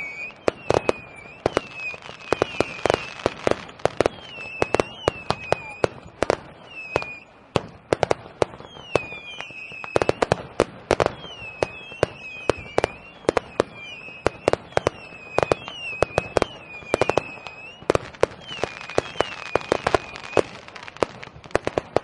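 Fireworks going off in a rapid, uneven string of sharp bangs and pops, with short high whistling chirps sounding throughout.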